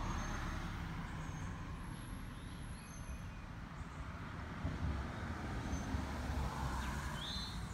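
Outdoor background ambience: a steady low rumble that swells in the middle, like distant road traffic or wind, with a few faint, short high chirps.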